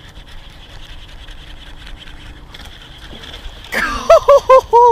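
A man yelling excitedly: a quick run of short, loud shouts that rise and fall, starting about three and a half seconds in, after a stretch of quiet background with a faint steady high hum.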